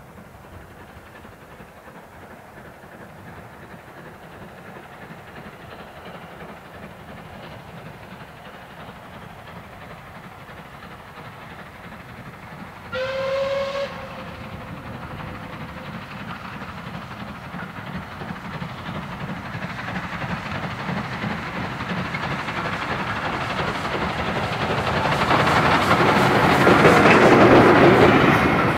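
Steam locomotive working a train towards the listener, its exhaust and rumble growing steadily louder, with one whistle blast of about a second near the middle. The sound is loudest near the end as the train passes, its wheels clattering over the rail joints.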